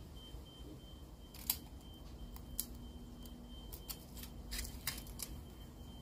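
Scattered sharp clicks, about eight of them and irregularly spaced, the strongest about one and a half seconds in, over a faint steady hum.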